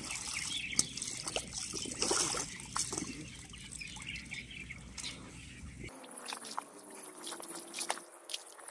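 Shallow muddy water sloshing and trickling, with small splashes and wet clicks, as hands and waders move and grope through pond mud.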